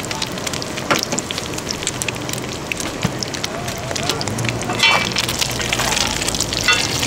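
Thai omelet deep-frying in a layer of hot oil on a wide, flat iron pan, with a steady crackling sizzle. Metal utensils scrape and clink against the pan about five seconds in and again near the end.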